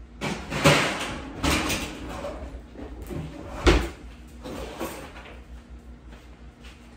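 Knocks and clatter of a kitchen oven being handled, likely its door being shut: several sudden knocks in the first few seconds, the loudest a single bang about three and a half seconds in.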